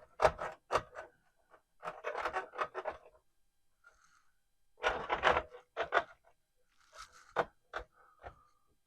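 Console parts being handled and fitted together: four short bursts of clicks and scraping with quiet gaps between them.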